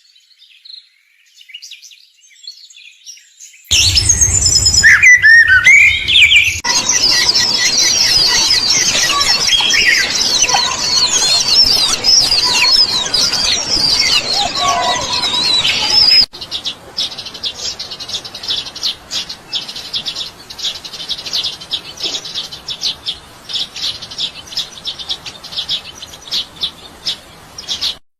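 Small birds chirping. After a few quiet seconds comes a dense chorus of many overlapping chirps and twitters. About 16 seconds in it changes abruptly to a quick run of short, repeated chirps.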